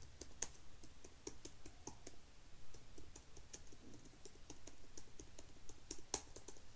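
Typing on a computer keyboard: quick, irregular keystrokes, several a second, with one louder keystroke near the end.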